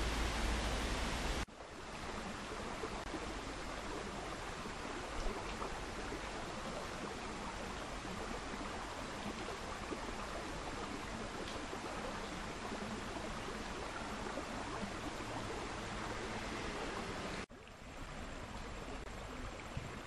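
Shallow rocky stream flowing, a steady rush of water. The sound changes abruptly about a second and a half in, losing its deep rumble, and drops quieter again near the end.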